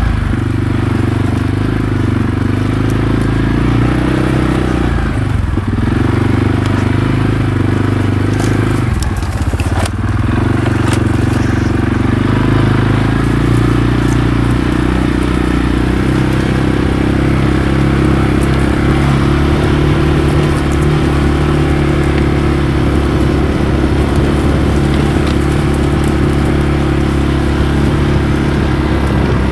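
ATV engine running while riding, its pitch shifting up and down several times as the speed changes. There are a couple of sharp knocks about nine to ten seconds in.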